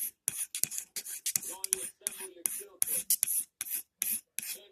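A scissor blade drawn again and again along a steel honing rod, in quick metallic scraping strokes of about three a second, as the scissors are sharpened stroking one way.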